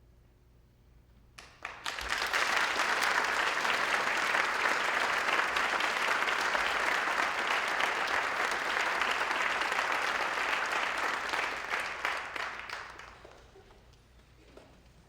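Audience applauding: the clapping starts about a second and a half in, holds steady, and dies away near the end.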